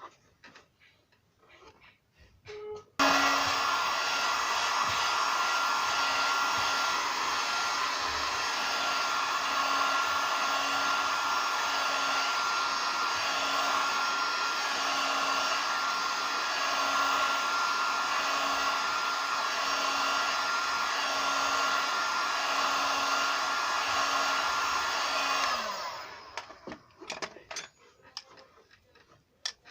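Heat gun blowing hot air steadily with a constant hum, used to soften the sealant of a car headlight so it can be opened. It switches on suddenly about three seconds in and winds down near the end.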